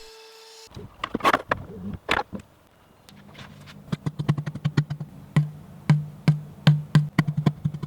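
Background music with a steady percussive beat: a low hum under regular sharp clicks about two to three a second, starting about three seconds in after a couple of short swishes.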